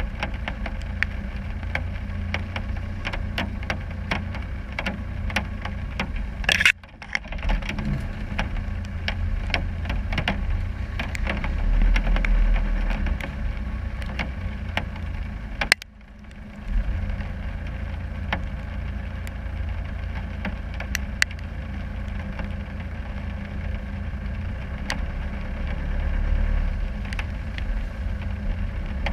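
Land Rover Discovery 300 Tdi's 2.5-litre four-cylinder turbo-diesel running at low revs as the 4x4 crawls along a muddy track, with frequent small ticks over the engine. Twice, about a quarter of the way in and just past halfway, a sharp knock is followed by a brief drop in the sound.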